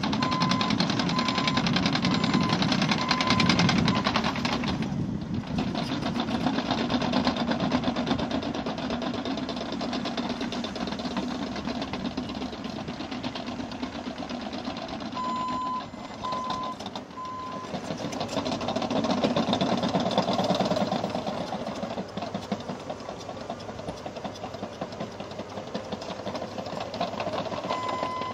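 Caterpillar D6N LGP bulldozer's diesel engine running, with the fast, steady clatter of its steel tracks. Its reversing alarm beeps at the start and again about halfway through, as the dozer backs up.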